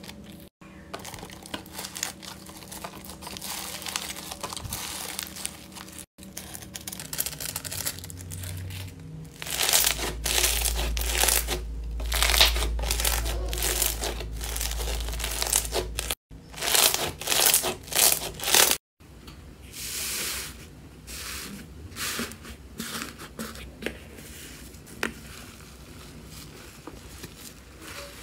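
Slime being squeezed, stretched and poked by hand, making crackling, crinkling sounds. It comes in several short clips that cut off abruptly a few times, with a low rumble under the middle clip.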